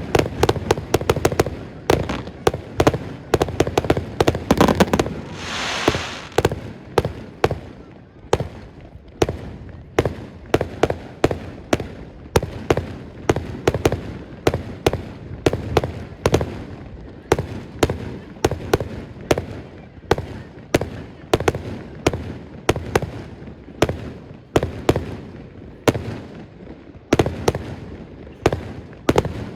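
Fireworks display: a continuous barrage of shell bursts, several bangs a second, densest at the start, with a brief hissing rush about five seconds in.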